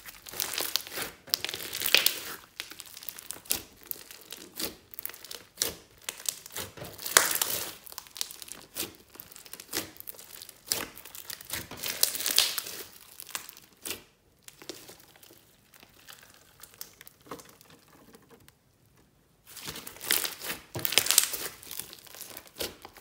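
Hands squeezing, folding and stretching a glossy slime packed with small beads, giving runs of crackling, popping squelches. The crackling drops away for a few seconds about two-thirds of the way through, then starts again.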